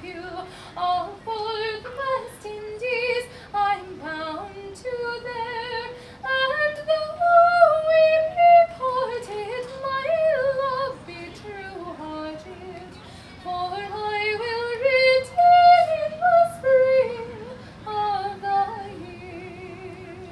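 A woman singing solo and unaccompanied, one melody line held in long notes with a wavering pitch.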